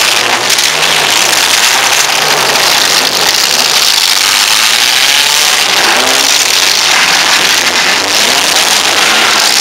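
Several four-cylinder compact demolition derby cars running and revving hard together, loud and continuous, with engine pitch rising and falling.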